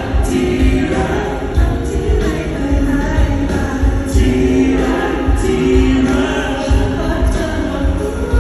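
Live band music with a singer: a sung melody over bass and a steady drum beat.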